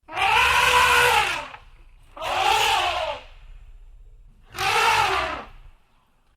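Elephant trumpeting: three blasts about a second long each, each one's pitch rising and then falling.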